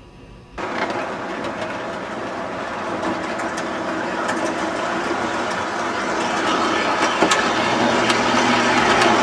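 O-gauge model train of MTH autorack cars running on the track, a steady rumble and hum with irregular clicks of wheels over the rail joints. It starts suddenly about half a second in and grows gradually louder.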